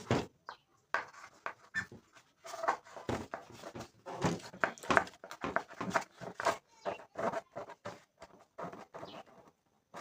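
Irregular rubbing and puffing as a door subwoofer's cone is pressed in and out by hand, testing whether it still touches and rubs.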